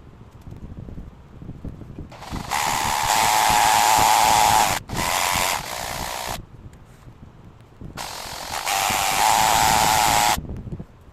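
Handheld power tool run in two bursts of a few seconds each, with a steady high whine; the first burst is briefly interrupted midway.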